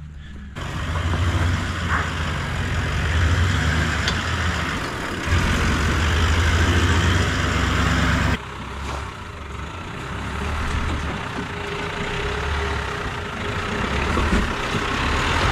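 Four-wheel-drive engines running at low revs as the vehicles crawl up a rocky track, heard close by. The sound changes suddenly about eight seconds in, when a Nissan Navara takes over.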